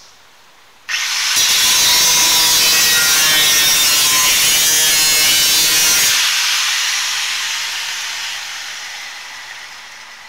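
Angle grinder with a cutoff wheel starting up about a second in and cutting through the steel brake dust shield for about five seconds. The wheel then comes off the metal and the grinder winds down, its sound fading away over the last few seconds.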